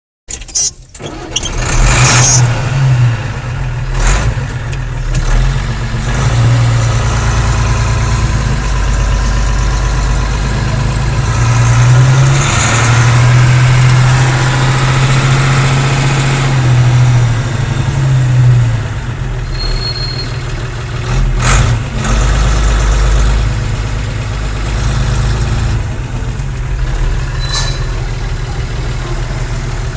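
Diesel engine of a 10-ton lorry running loudly, rising in several surges (about 2 s in, over a long stretch in the middle, and again around 22 s) and dropping back to a steady idle, with a few sharp clicks along the way.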